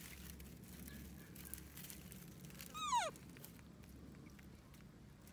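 A kitten gives one short mew about three seconds in, rising briefly then falling sharply in pitch, over faint rustling of the two animals scuffling in dry grass.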